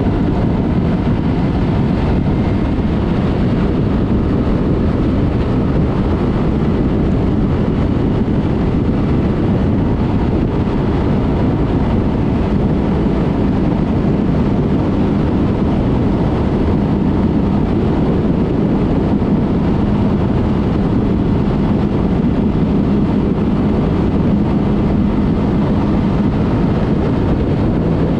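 Yamaha MT-03 motorcycle with a Mivv exhaust cruising at a steady speed, its engine note held level, under heavy wind rush on the helmet- or bike-mounted camera microphone.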